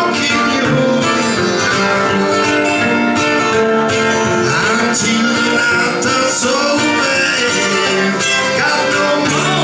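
Acoustic guitar strummed in a country-style song, with a man singing over it into a microphone.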